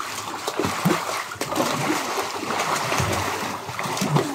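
Children splashing and kicking in an above-ground swimming pool: a continuous churn of irregular water splashes.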